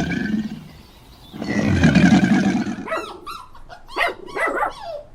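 Animal calls: two long, loud calls, then from about three seconds in a quick series of short yelping calls.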